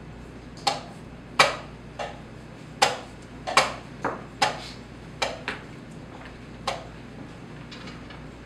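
Wooden chess pieces clacked down on a wooden board and the chess clock tapped in quick blitz play: about ten sharp knocks at irregular intervals, the loudest about a second and a half in and again near the middle, stopping well before the end.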